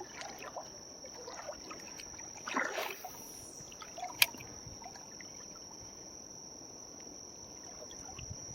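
A steady high cricket trill over faint creek water, with a brief splashing rush about two and a half seconds in and a single sharp click, the loudest sound, about four seconds in.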